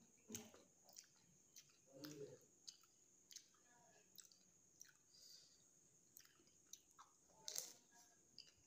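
Faint mouth sounds of pani puri being eaten: soft crunches of the fried shells and wet chewing, with scattered sharp clicks.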